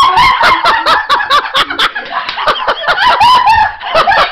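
A woman shrieking and squealing in fright, a rapid run of short high-pitched cries several per second.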